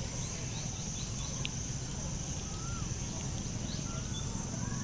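Small birds chirping in short, scattered whistled notes over a steady high-pitched hum and a low rumble of outdoor background noise.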